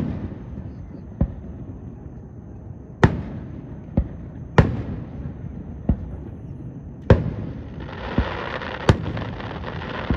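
Aerial fireworks shells bursting: about ten sharp booms at irregular gaps of roughly a second, each trailing off briefly, with a stretch of dense crackling near the end.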